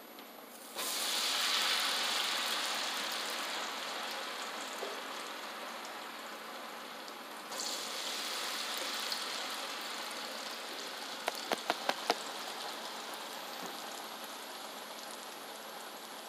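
Batter-coated potato strips frying in a deep pot of hot oil, a steady rain-like sizzle with bubbling. It jumps up sharply about a second in and again around seven and a half seconds as more strips go into the oil. There are a few sharp clicks around eleven to twelve seconds.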